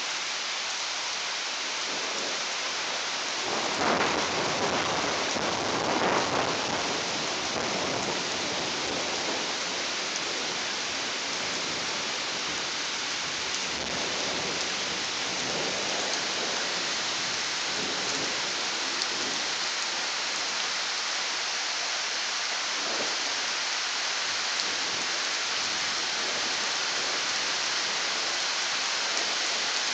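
Steady rain hissing throughout, with a roll of thunder starting about three and a half seconds in that swells twice and fades over several seconds. Fainter rumbles of thunder come again in the second half.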